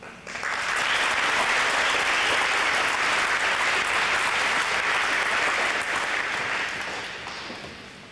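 Audience applauding: the clapping swells in just after the start, holds steady, then dies away near the end.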